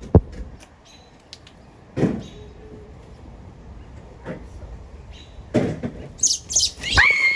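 A few sharp knocks and thumps, the loudest just after the start, then high chirping near the end running into one long high-pitched shriek.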